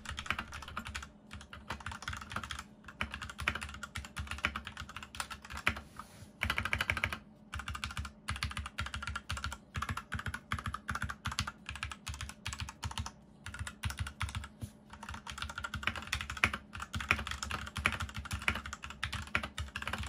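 Fast typing on a Royal Kludge RK61 60% mechanical keyboard with unlubed linear red switches: a dense, uneven run of keystrokes with a few short pauses.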